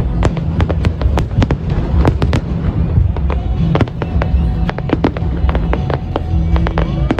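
Aerial fireworks display: shells bursting and crackling in rapid, overlapping succession, several sharp reports a second.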